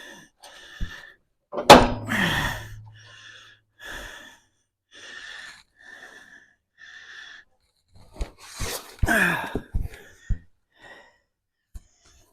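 A man breathing hard and grunting twice as he pulls a mower deck linkage into place, with short breaths about once a second and several sharp metal knocks.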